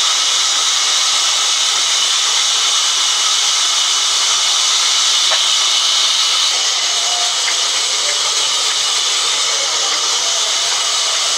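Large sawmill band saw cutting through a thick wooden slab: a loud, steady, high-pitched rushing noise of the blade in the wood, with a couple of faint clicks.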